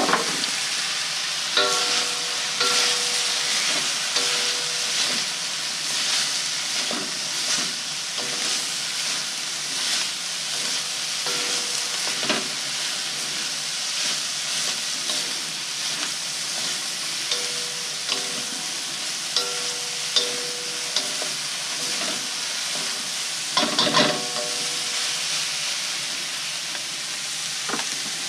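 Chicken and vegetables sizzling steadily in a hot Fissler stainless steel wok while they are stir-fried. Utensils scrape and clink against the wok now and then, with a burst of louder knocks about 24 seconds in.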